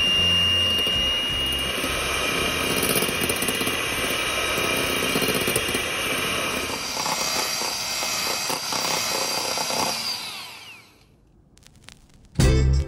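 Electric hand mixer running steadily, its beaters whipping egg whites into meringue in a glass bowl. About ten and a half seconds in, the motor winds down with a falling whine and stops.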